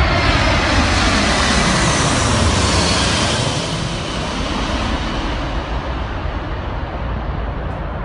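Large four-engine military jet transport plane flying low overhead, its jet engines loud throughout. A whine falls in pitch as it passes over, and the sound eases a little over the last few seconds as it moves away.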